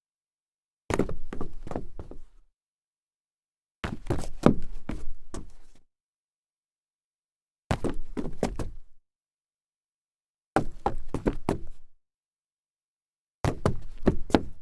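Stumble on solid wood: a quick run of several knocks and thuds, heard five times with silence between.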